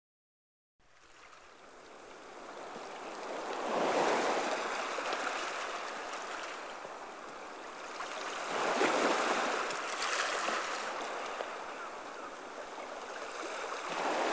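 Water waves washing in slow surges, swelling and easing about every five seconds, fading in after a second of silence.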